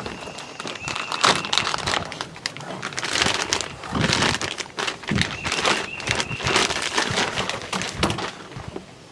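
Plastic and cardboard packaging crinkling and rustling in irregular bursts, with small knocks, as the shotgun's parts are lifted out of the box.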